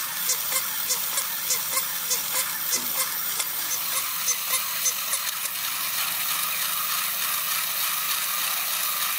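Walking plush rabbit toys' small battery motors and gearboxes running, with a rhythmic clicking about three times a second from the walking mechanism over a steady whir. The clicking stops a little past halfway, leaving only the steady mechanical whir.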